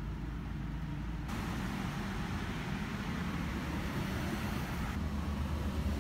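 Steady background noise: a low rumble with a hiss over it that gets louder about a second in.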